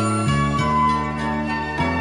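Instrumental background music, its held low notes stepping to a new pitch every half second to a second under steady higher tones.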